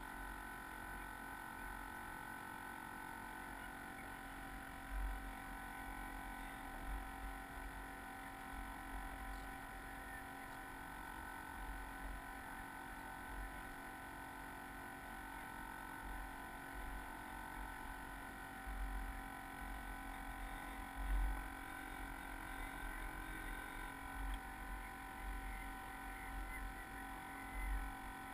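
Muffled, boxed-in sound from a camera housing on a sailing model yacht: irregular low thumps of wind and small waves buffeting the hull, under a steady hum of several fixed tones.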